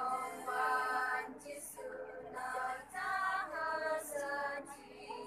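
A group of women singing together from songbooks, in phrases of held notes with short pauses for breath between them.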